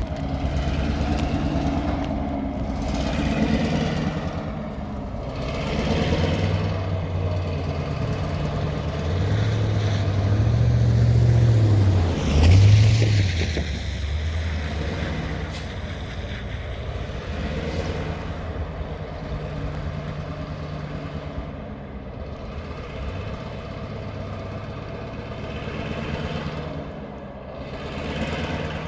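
A vehicle engine running, its low note wavering and swelling to its loudest about twelve seconds in, over a steady rushing noise.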